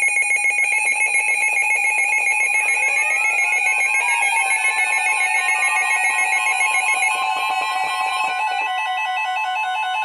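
Emergency alert tones from several alert radios sounding at once: steady electronic alarm tones with a fast pulsing, more tones sliding up in pitch and settling about three to four seconds in, and the pulsing smoothing out about seven seconds in.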